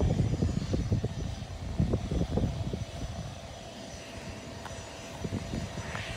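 Business jet's turbofan engines running at taxi power, a steady whine, with wind buffeting the microphone in gusts, heaviest in the first couple of seconds.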